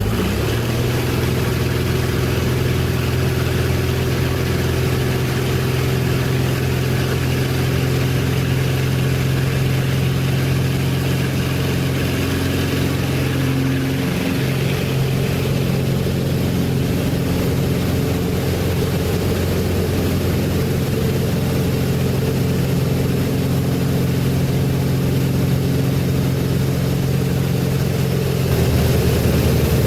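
Glastar light airplane's piston engine and propeller droning steadily in flight. Near the end the low drone shifts and grows slightly louder.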